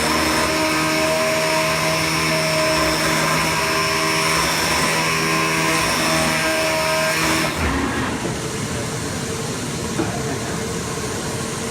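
CNC digital flatbed cutting machine running: a steady mechanical drone with a high whine and several steady tones, which drops to a quieter steady hum about two-thirds of the way through.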